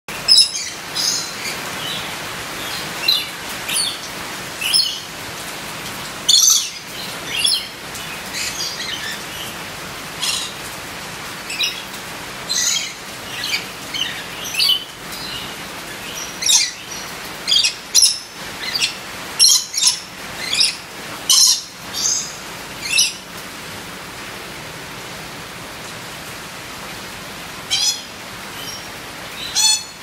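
Red lory giving short, high calls about once a second, over a steady hiss of rain. The calls stop for a few seconds about three-quarters of the way through, then start again.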